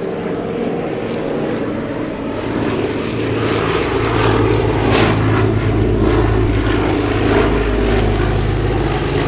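Large propeller airplane flying low overhead, its engines droning steadily, growing louder over the first few seconds and then holding.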